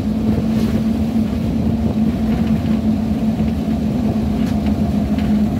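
Engine and road noise of a utility vehicle heard from inside its cabin while driving at a steady speed, with a steady hum that holds one pitch.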